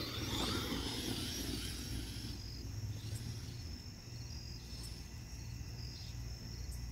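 Traxxas Maxx RC monster truck's brushless electric motor whining, rising and falling with the throttle, as the truck runs off through grass and fades out over the first two seconds. After that, crickets chirp in a steady repeating pattern.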